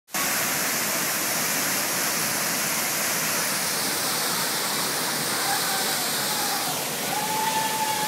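Waterfall plunging down a rock face into a gorge: a steady, loud rush of falling water.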